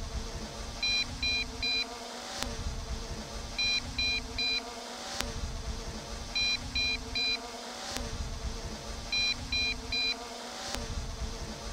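MJX Bugs B5W quadcopter transmitter sounding its low-battery alarm: groups of three short high beeps, repeating about every three seconds, warning that the drone's flight battery is low. A low rumble runs underneath.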